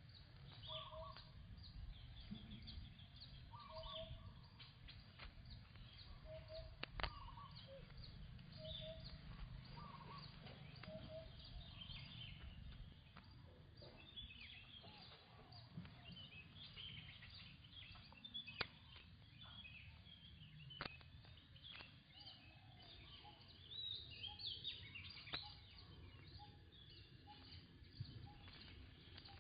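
Faint birdsong: a short two-note call repeated about once a second for the first dozen seconds, with higher chirps throughout and a few sharp clicks.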